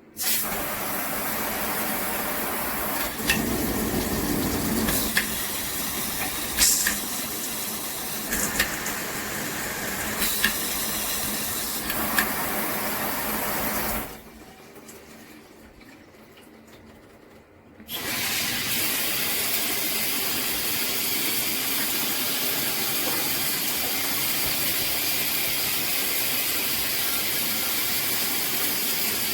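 Water spraying hard from a shower head, a steady rushing hiss with a few knocks in the first half. It drops away for about four seconds near the middle, then runs steadily again.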